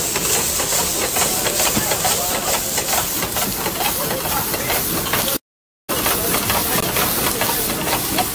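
Food frying in a pan over a high flame, a steady sizzle full of fine crackles as the pan flares. The sound cuts out for half a second about five and a half seconds in, then the sizzling hiss resumes.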